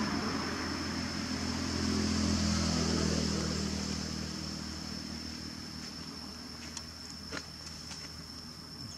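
A motor vehicle's engine humming past, swelling about two seconds in and then fading away, under a steady high whine. A few faint clicks near the end.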